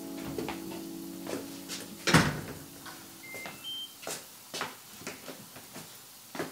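A front door opens or shuts with a loud clunk about two seconds in. About a second later a digital door lock plays a short rising three-beep chime, followed by scattered footsteps and shoe scuffs.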